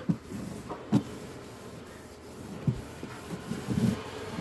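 A damp cloth rubs steadily over the inside of a refrigerator, with a few light knocks along the way.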